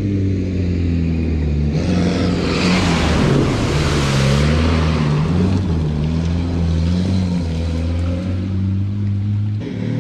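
Off-road 4x4 engine revving hard as the vehicle drives through mud and puddles, the engine pitch rising and falling with the throttle. A rush of spray from the spinning wheels joins in about two seconds in and fades a few seconds later.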